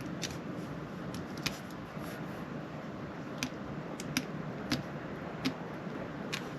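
Light, scattered clicks and small taps of handling a plastic phone holder and thermoplastic piece, about eight in all, over a steady background hiss.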